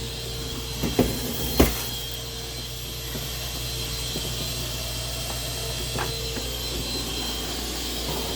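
A steady mechanical hum from a running machine, with a few short clicks and knocks: two about a second and a half in, and one near six seconds.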